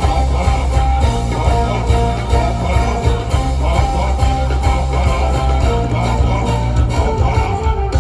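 Band music at a sound check: a steady beat with heavy bass and guitar, in an instrumental break between sung lines.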